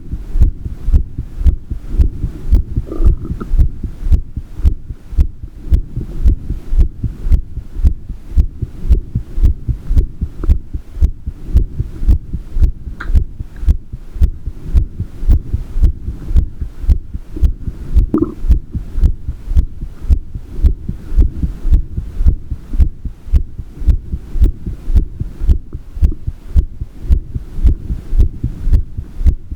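Human heartbeat, the lub-dub heart sounds thumping in a steady even rhythm over a low hum.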